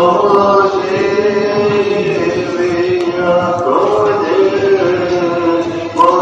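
A man singing a slow Orthodox church chant in long held notes, with a new phrase starting about halfway through and another near the end.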